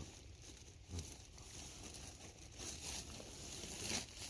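Rustling and crinkling of bags and packs being rummaged through by hand, irregular and growing louder toward the end.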